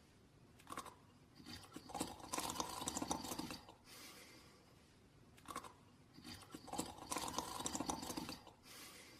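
Snoring in a slow, even rhythm: two long snoring breaths about five seconds apart, each with a short sharp sound just before it.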